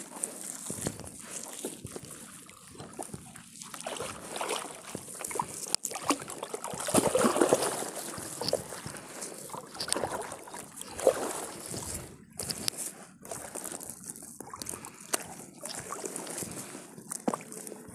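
A wet nylon fishing net pulled and picked through by hand in a small boat, water trickling, dripping and splashing off it. The splashing and rustling are loudest about seven seconds in.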